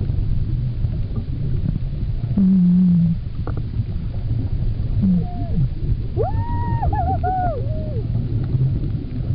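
Humpback whale song heard underwater: a low steady moan, a short falling note, then a higher wavering call that rises and falls about six seconds in. Under the song runs a steady low rumble of water noise.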